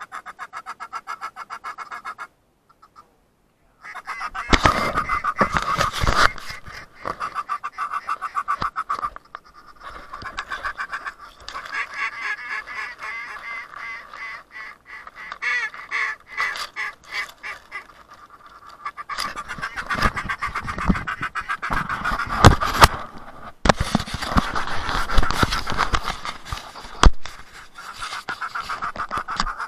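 Waterfowl calling in rapid runs of quacks and honks, with a short break about two seconds in. A few sharp, loud bangs cut through the calling.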